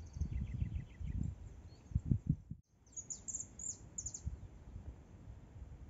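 Small birds chirping: a quick run of short high notes in the first second, then several quick downward-sweeping high chirps a little after halfway, over a faint low rumble. The sound cuts out completely for a moment just before the later chirps.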